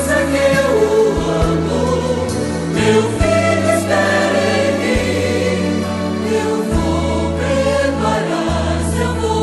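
Gospel song: a choir singing over a band, with the bass notes held and changing every second or two.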